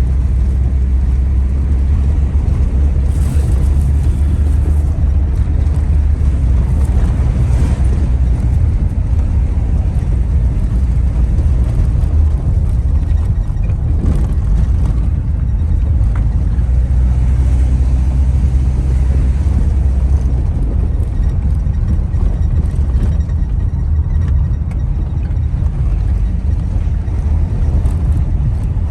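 Steady low rumble of a car's engine and road noise, heard from inside the car.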